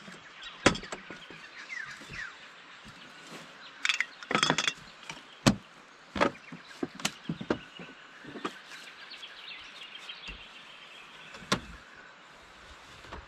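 Folding aluminium camp table being collapsed and packed away: a string of sharp metal clicks and clanks as the legs fold in, the loudest about a second in and a quick cluster around four to five seconds in. Birds chirp faintly in the background.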